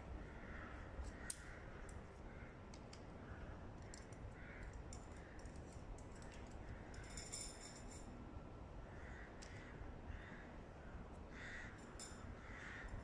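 Crows cawing faintly over and over, with a few light clicks and clinks of gear being handled.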